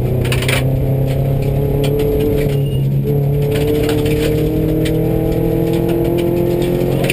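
Subaru rally car's flat-four engine under load, heard from inside the cabin, its pitch climbing slowly from about three seconds in. Gravel and stones clatter against the underbody.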